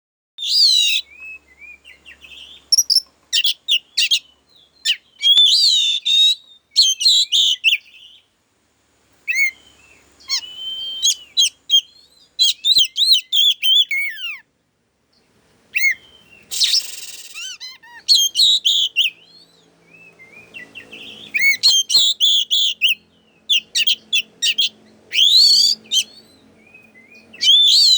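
Oriental magpie-robin (kacer) singing an agitated, fired-up song: fast, varied bursts of whistles and sharp chirps, broken by short pauses. It is the kind of song used as a lure to provoke other kacer into singing.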